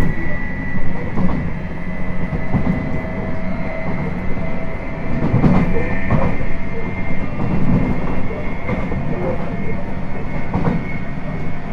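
JR 719 series electric multiple unit running at speed, heard from inside the car: a steady high whine, the car's unusual "jet" noise, over the rumble of the running gear, with the wheels knocking over rail joints every second or two.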